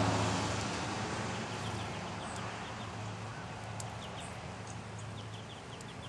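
Finches chirping in short, high notes that start about two seconds in and come more often toward the end, over a steady low hum and a soft hiss.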